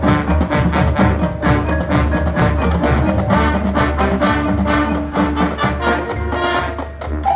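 High school marching band playing its field show: brass and drumline together, with drum strokes on a steady beat.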